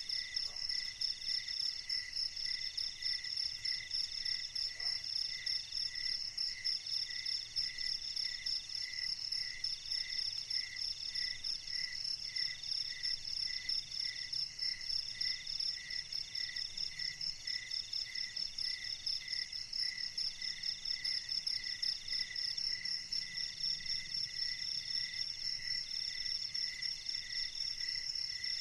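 A chorus of night insects, crickets among them, with several calls overlapping: a fast, steady high trill, a mid-pitched buzz in long pulses of about a second with short breaks, and a lower chirp repeating about two to three times a second.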